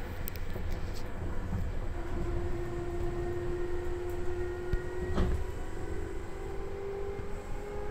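Seibu 2000 series electric train heard from inside the passenger car while running: a steady low rumble of wheels on rail, with a motor tone that slowly rises in pitch from about two seconds in, and a single knock about five seconds in.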